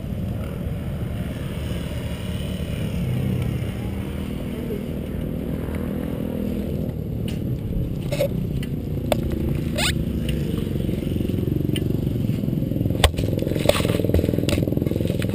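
Steady low rumble of motorcycle engines running in the background. In the second half come sharp knocks, clicks and scrapes as the helmet-mounted camera is handled and the helmet is set down on grass.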